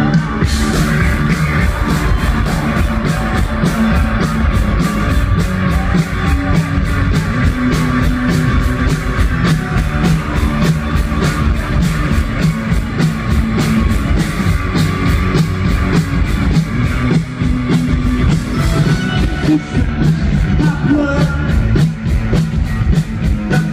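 Rock band playing live, with a steady, driving drum beat under keyboards.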